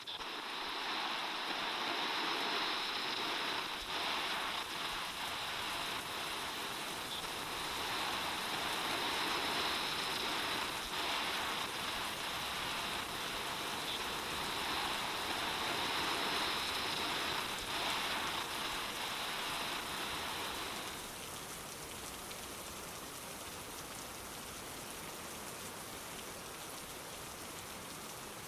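Steady rain falling, an even hiss of many drops. About three quarters of the way through, the louder, brighter layer drops away, leaving softer, steady rain.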